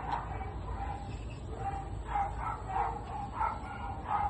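Dog yipping and whining in short, high, repeated calls, about two a second.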